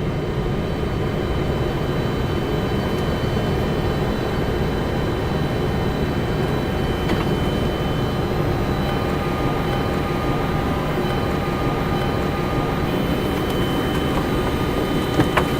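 Boeing 747-400 flight deck with the engines running at low power: a steady rumble of engine and airflow noise with faint high whine tones. There are a couple of sharp clicks near the end.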